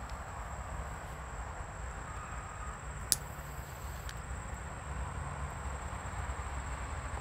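Outdoor ambience: a steady, high insect drone over a low rumble, with one sharp click about three seconds in.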